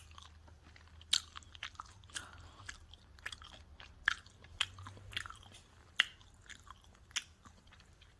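Close-miked chewing of pizza: irregular sharp, crisp crunches of the crust, several a few tenths of a second to a second apart, between softer wet chewing sounds.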